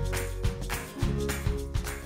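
Background music with sustained chords over a steady beat.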